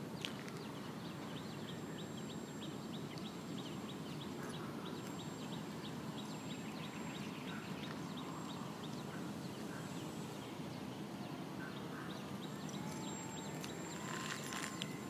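Faint motor whine of a small radio-controlled airplane, rising in pitch near the end as the plane comes over, against steady outdoor background noise with soft rhythmic ticking, about two or three a second, in the first part.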